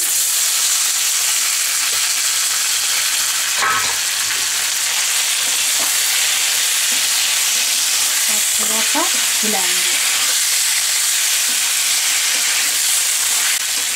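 Boiled taro (arbi) pieces frying and sizzling steadily in hot mustard oil in a kadhai while being stirred with a metal spatula. A single knock sounds about four seconds in.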